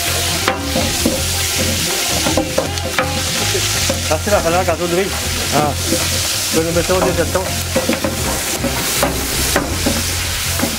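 Sliced onions and spices sizzling in hot oil in a large aluminium pot, stirred with a wooden spatula that scrapes against the pot again and again.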